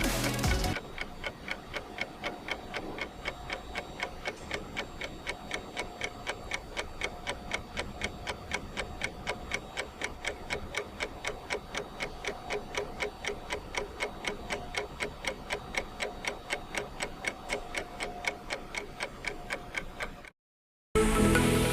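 Steady, even mechanical ticking, about four ticks a second, cut off abruptly near the end.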